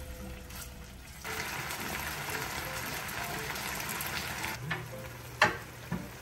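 Marinated pork neck frying in a pan, sizzling and bubbling in its sauce, the sizzle growing louder about a second in. Near the end a sharp knock sounds, followed by a smaller one.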